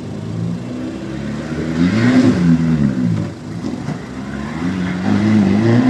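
Volkswagen Amarok's diesel engine revving: its pitch climbs to a peak about two seconds in and drops back, then rises again near the end.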